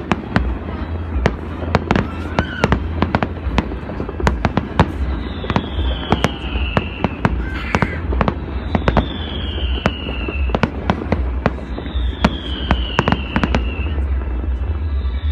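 Fireworks going off: a rapid run of sharp bangs and crackles over a steady low rumble. A high falling tone comes back about every three and a half seconds.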